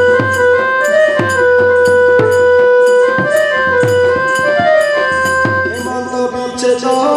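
Folk dance music: a large barrel drum beaten in an even beat, two to three strokes a second, under a held, slowly shifting melody on a wind instrument. The drumming stops about six seconds in while the melody carries on.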